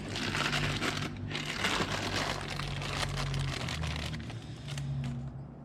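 Packaging wrap crinkling and rustling in the hands as a new connecting rod is unwrapped, with a steady low hum beneath.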